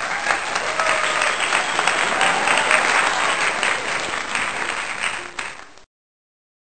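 Crowd applauding with some cheering voices; the applause cuts off abruptly near the end.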